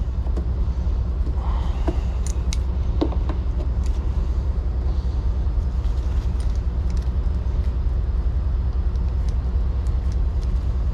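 Steady low rumble of an idling vehicle engine, with a few light metallic clicks and taps of hand tools being handled.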